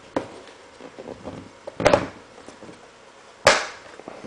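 Hard plastic clicks and snaps as the halves of a white plastic outdoor router enclosure are pressed together and snap into place, with handling rustle between. There is a light click at the start, a double snap just before two seconds in, and the sharpest snap about three and a half seconds in.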